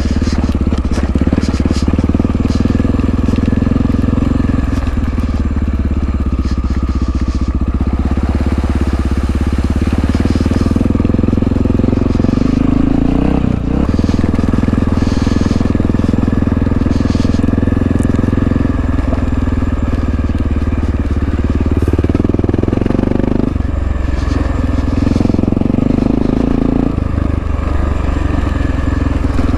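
1997 Honda XR650L's single-cylinder four-stroke engine running under way, its note rising and falling with the throttle, with a brief drop off the throttle about halfway through and another a few seconds before the end.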